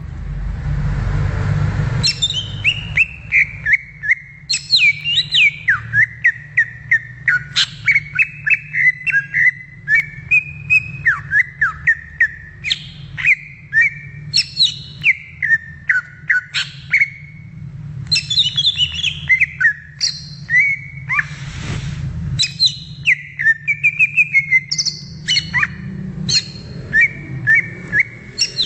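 Cucak ijo (green leafbird) singing a long, fast, varied song of whistled notes, rising and falling glides and chattering phrases with hardly a pause. A short rush of noise comes under the song at the start and again about 22 seconds in.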